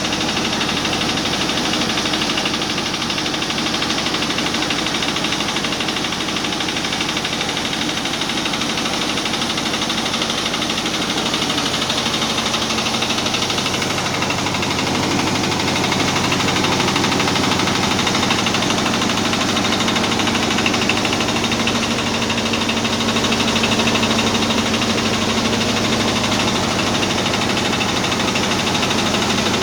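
Simple rice milling machine running steadily, an engine-like mechanical drone that gets a little louder about halfway through.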